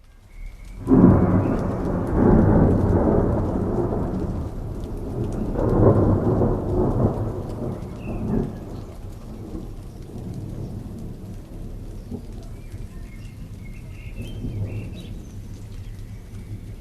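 Rolling thunder over steady rainfall: a sudden loud rumble about a second in, a second swell around six seconds, then the thunder fades and steady rain remains.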